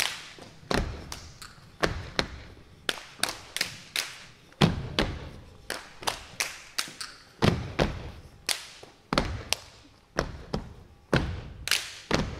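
Step team stepping in boots on a wooden stage: a quick, uneven rhythm of sharp stomps and claps, about two to three hits a second, each with a short echo.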